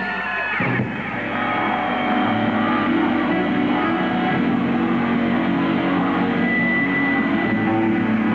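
Live rock band playing, with electric guitar; the sound fills out and grows a little louder about a second in.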